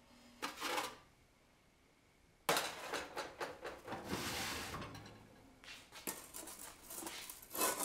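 An oven rack with a baking stone on it is pulled out on its metal runners, scraping and clinking, from about two and a half seconds in. Near the end a metal bread peel carrying the loaf scrapes in over the stone. A brief shorter rustle comes about half a second in.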